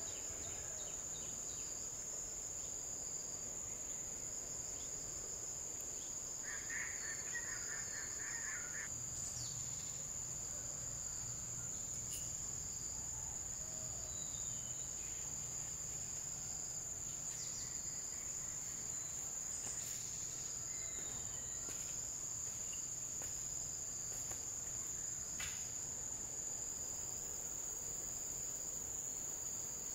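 Forest insects singing in one steady high-pitched drone. A short burst of rapid chirping comes in about seven seconds in.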